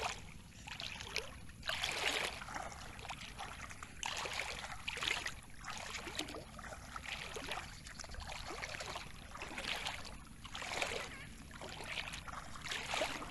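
Bare feet wading through shallow water, a slosh and splash with each step, about one a second.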